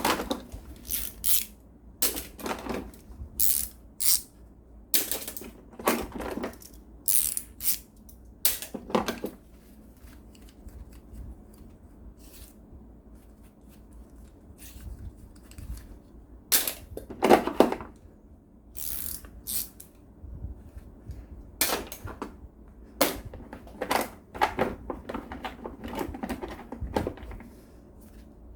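Hand tools being handled and set down on a hard surface: irregular clacks and clicks, quieter for a while in the middle, with the loudest clatter just past halfway.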